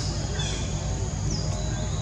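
Small birds chirping in short, high calls that slide downward in pitch, several times, over a steady low rumble.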